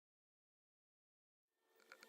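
Near silence, with faint background noise and a few faint ticks fading in near the end.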